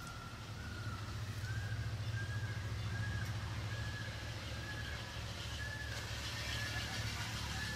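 A bird repeating a short, clear note about every two-thirds of a second, over a steady low rumble.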